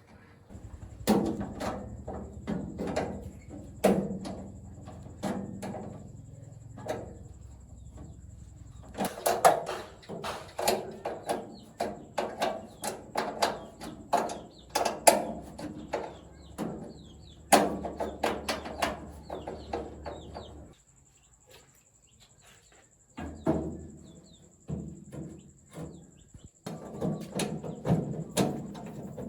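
Irregular knocking and tapping in clusters, with a low hum under it that stops about 20 seconds in.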